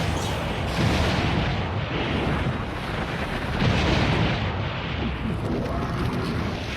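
Neon Genesis Evangelion sound effect for the Mass Production Evas: a long, loud, rumbling blast-like roar that swells about a second in and again near four seconds.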